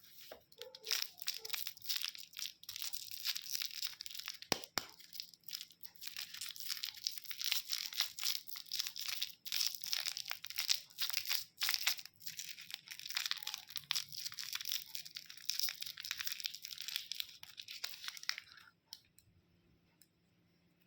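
Crinkly candy wrapper being handled and unwrapped: a dense, continuous run of sharp, high crackles that stops a few seconds before the end.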